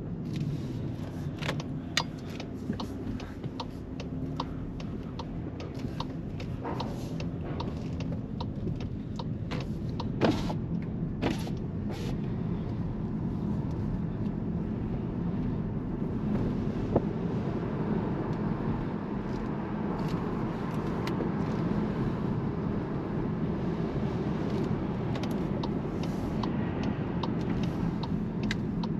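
Volkswagen T-Roc R's 2.0 TSI turbocharged four-cylinder engine with Akrapovic titanium exhaust running steadily at low speed, heard from inside the cabin. Scattered sharp clicks sound over the first dozen seconds, and the engine note grows a little louder after about fifteen seconds.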